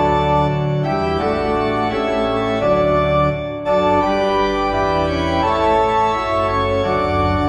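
Organ music: sustained chords moving from one to the next, with a brief pause a little past halfway.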